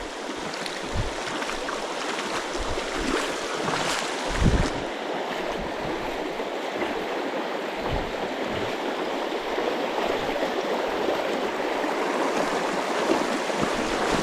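Steady rushing of a small river's current over rocks, with a few soft thumps from handling; the loudest comes about four seconds in.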